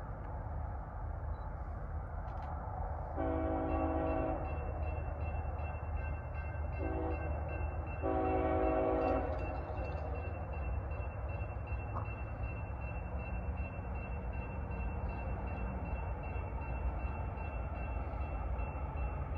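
Approaching CSX diesel locomotive's air horn sounding three times (long, short, long) over the steady low rumble of the oncoming train. A faint steady high tone with regular ticking runs under it through the second half.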